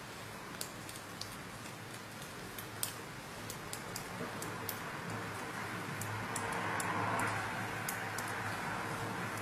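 Metal knitting needle tips clicking lightly and irregularly against each other as knit stitches are worked, over a soft rustle of wool yarn and hands that swells a little near the middle.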